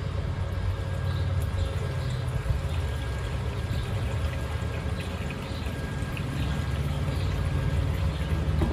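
Petrol pouring from a fuel can through a plastic funnel into a generator's fuel tank, a steady trickle over a steady low rumble.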